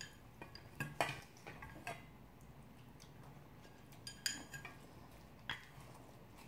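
Eating utensils tapping and scraping against stainless steel bowls while bibimbap is stirred and noodles are eaten: a few soft, scattered clinks, one with a short metallic ring about four seconds in.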